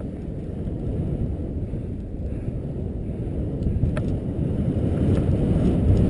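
Skis running downhill through powder snow, heard as a steady low rumble with wind buffeting the microphone.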